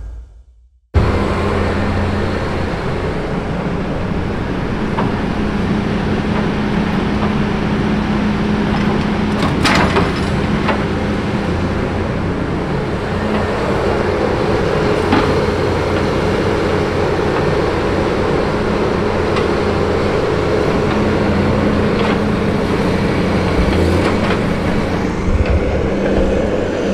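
Tigercat 234 knuckleboom log loader's diesel engine running steadily under work. A higher tone joins about halfway through and a couple of sharp knocks come in between.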